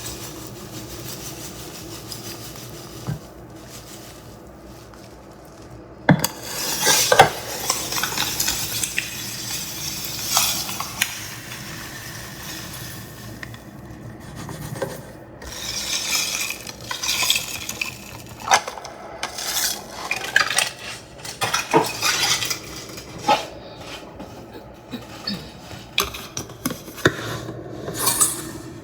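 Spoon stirring and clinking in cups while dishes and cutlery are handled: irregular clinks and scrapes, starting about six seconds in after a quiet stretch.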